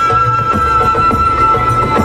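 Music from a laser show's soundtrack: a sustained high note held over a steady, pulsing low beat.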